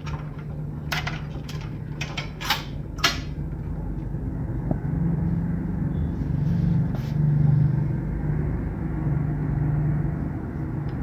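A run of about five sharp metallic clicks and taps from hand tools and parts being handled during disassembly of a CT scanner's gantry, between one and three seconds in, over a steady low hum.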